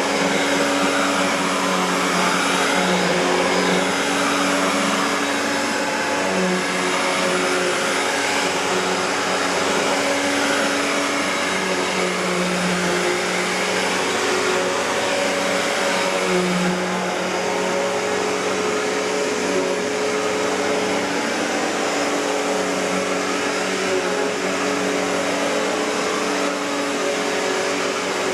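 1994 Riccar N2000 upright vacuum cleaner, with its Panasonic-made motor, running steadily. Its hum swells and eases slightly every few seconds.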